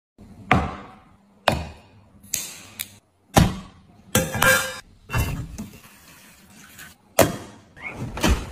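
A string of sharp knocks and clinks of hard tableware being set down, roughly one a second. A brass bowl dropped into an enamelled metal warmer stand rings briefly about four seconds in, and refrigerator doors are handled near the end.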